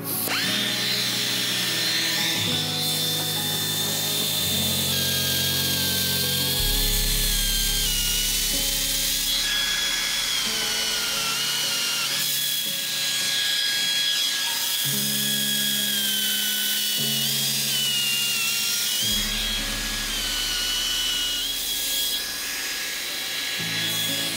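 Background music with a stepping chord pattern, over the high, wavering whine of a power tool machining metal.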